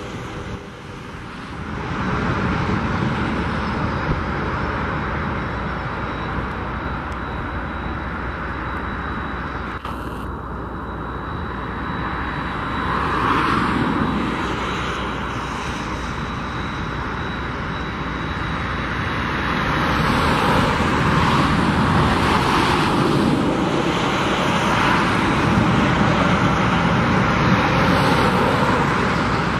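Boeing 767-300F jet engines running at taxi power, a steady roar with a faint high whine. The roar swells about halfway through and again later as the aircraft taxis.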